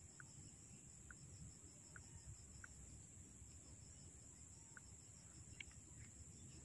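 Faint insect noise: a steady high-pitched buzz that pulses quickly, over a low rumble, with a few short, faint chirps scattered through.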